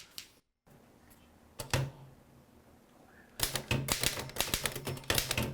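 Typewriter being typed on: a single key strike about two seconds in, then a fast, uneven run of key strikes from about three and a half seconds on.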